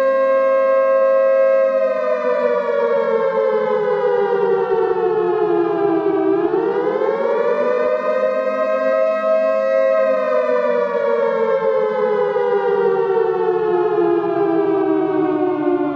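Flood-warning siren wailing a heavy-rain flood alert. It holds one tone for about two seconds, slowly falls, swings back up about six seconds in, then slowly falls again.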